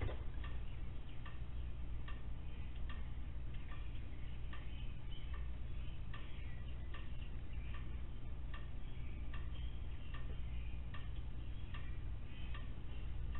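Night ambience through an outdoor security camera's microphone: a steady low hum with faint, slightly irregular ticks about twice a second.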